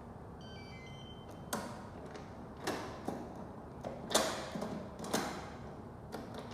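Smart door lock's keypad gives a short run of electronic beeps, then about five sharp mechanical clunks and clicks as the lock's handle and latch are worked.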